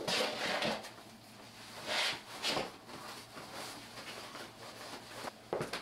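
Leather western work boots being picked up and pulled on: short bursts of leather and denim rustling and scuffing, with a boot knocking on the wooden floor near the end.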